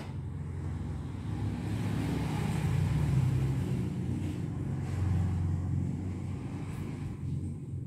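A motor vehicle's low engine rumble, swelling through the middle and easing off near the end.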